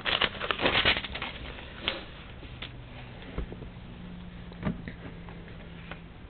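Pages of a Bible being leafed through to find a passage: a quick flurry of rustling page turns in the first second or so, then a few single page flips and light taps spread through the rest.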